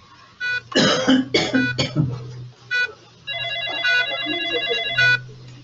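A person coughing, three harsh coughs about a second in, the loudest sound here. Around it is hospital-ward electronics: short electronic beeps every second or so, and a steady electronic tone sounding for about two seconds from around three seconds in.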